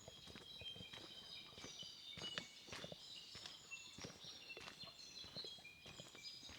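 Faint footsteps of someone walking, with many short high-pitched chirps scattered over them.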